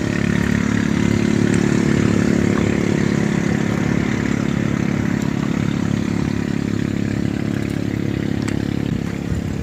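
An engine running steadily with a low, even hum that swells slightly about a second in.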